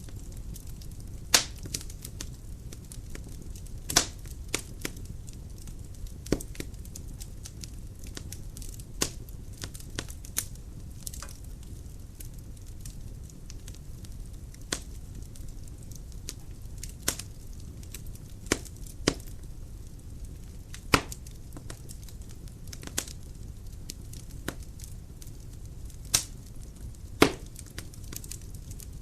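Dry firewood burning in a fireplace: a steady low rumble of flame with sharp, irregular crackles and pops from the wood, the loudest about a second in and near the end.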